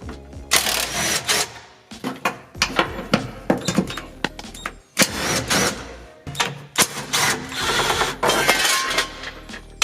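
Irregular metal clanks and knocks with short bursts of scraping and rasping, from sheet-metal bracing and brackets being cut and torn out of a car's rear interior.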